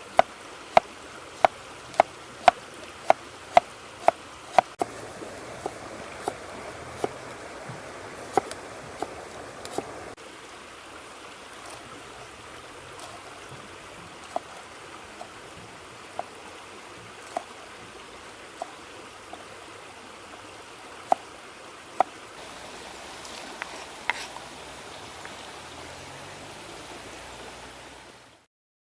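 Steady rushing of flowing river water, with a quick run of sharp knocks, about two a second, for the first five seconds, then scattered single knocks every second or so.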